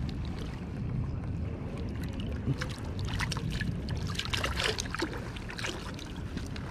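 Steady rush of river water, with a run of small splashes and ticks close by about three to five seconds in.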